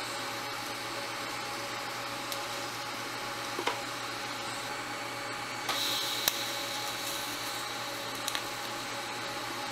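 TIG welder running while small pipe fittings are tack-welded with a fusion weld, no filler rod: a steady electrical hum and hiss, with a brighter, higher hiss coming in a little over halfway through as the arc burns, and a few faint ticks.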